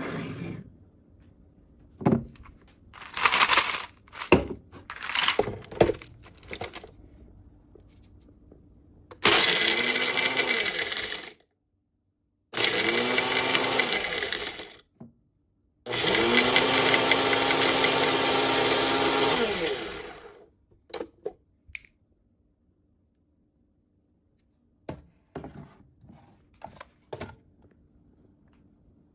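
Ninja BN751 Professional Plus DUO blender's motor running in three bursts of a few seconds each, blending in a single-serve cup. The pitch rises as the blades spin up and falls as they spin down. Short knocks come before the runs and a few sharp clicks after them.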